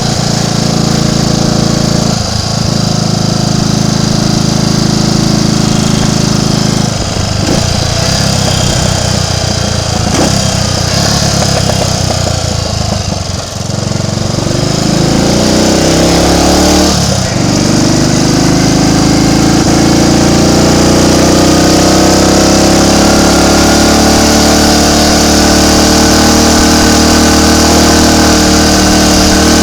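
Triumph Tiger Cub's single-cylinder four-stroke engine running under way. About halfway through the revs drop briefly, then climb, break once and climb again, settling at a steady higher speed.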